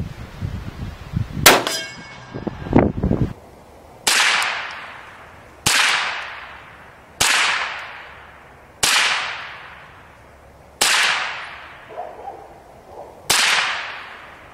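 A series of rifle shots from a small-bore rimfire rifle, six sharp cracks about one and a half to two and a half seconds apart, each with a fading echo. In the first three seconds, two louder bangs, the first with a metallic ring.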